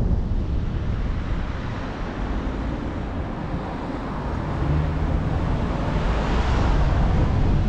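Wind buffeting the microphone over a steady rumble of road traffic, with a vehicle swelling past about six seconds in.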